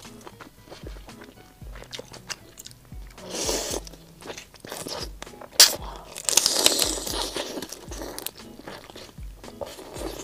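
Close-miked biting into a large shell-on prawn: the shell cracks and crunches and the juicy head is sucked and slurped, with one sharp crack about midway the loudest. Background music with a soft steady beat runs underneath.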